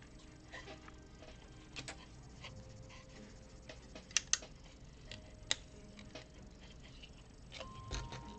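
Plastic Lego pieces clicking and being handled during building, with scattered sharp clicks, the loudest a quick pair about four seconds in.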